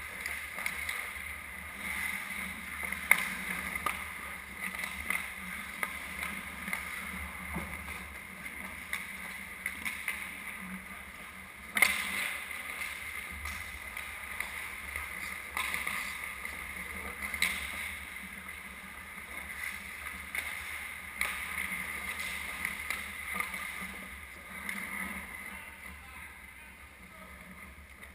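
Ice hockey play: skate blades scraping and carving on the ice, broken by sharp clacks of sticks and puck. The loudest clack comes about twelve seconds in, and others come about three and seventeen seconds in.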